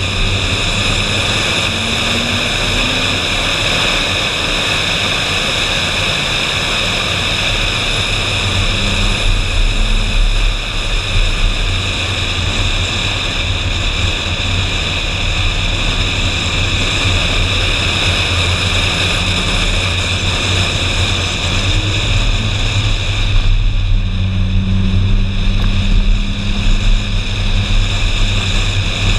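Wind rush and road noise on an exterior-mounted action camera on a Ferrari 458 Spider driving at speed, over a low steady drone from the car's mid-mounted 4.5-litre V8. About three-quarters of the way through, the hiss eases and a steady low engine note comes forward.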